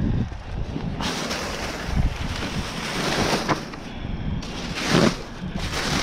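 Wind buffeting the microphone in a low rumble. From about a second in, a loud crinkling hiss of plastic bags being handled and rummaged through, breaking off briefly twice.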